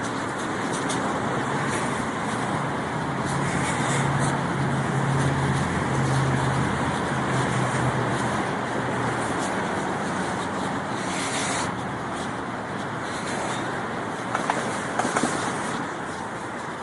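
Street traffic noise from road vehicles. A low engine hum from a passing vehicle builds for several seconds in the middle, then fades.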